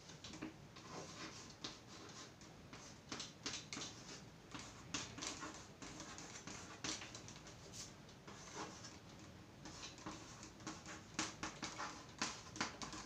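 Chalk scratching and tapping on a chalkboard as a line of words is written out, in many short, irregular strokes.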